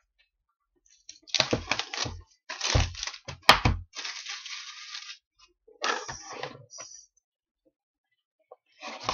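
A cardboard hobby box of trading cards being handled on a table: rustling and tearing of its packaging in several stretches, with low knocks and a sharp crack about three and a half seconds in, then mostly quiet apart from a light tick.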